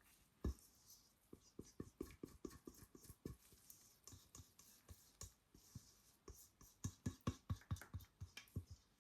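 Faint, irregular taps and scrapes of a utensil against a container and mold as cold process soap batter is spooned and poured in, a few knocks a second, busiest near the end.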